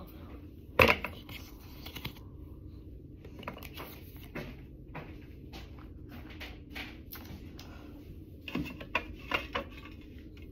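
Handling noise: scattered light clicks, taps and rustles of small objects being moved around, with one sharp tap about a second in and a short cluster of clicks near the end.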